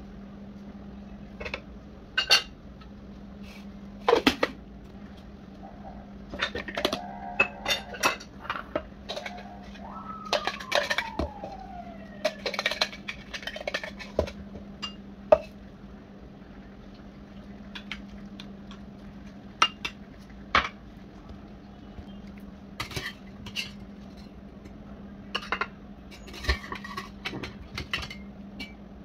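Kitchen utensils and dishes clinking and knocking now and then: spoon, bowls and pot handled on a stone counter, over a steady low hum. A brief falling tone sounds about ten seconds in.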